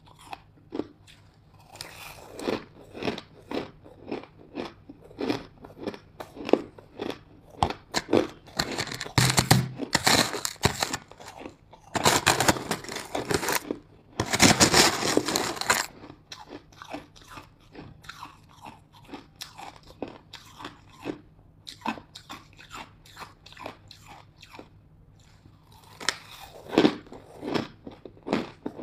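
Close-up crunching and chewing of hard ice chunks, a quick run of sharp crunches with two louder, denser spells of biting near the middle, then sparser chewing crunches.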